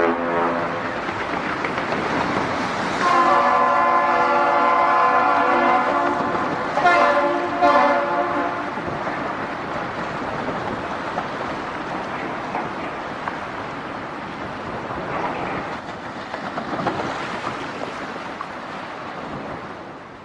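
A large ship's horn blowing: a blast that ends just after the start, then a second long blast of about five seconds starting about three seconds in, made of several steady tones sounding together. After it only a steady rushing noise of wind and water remains.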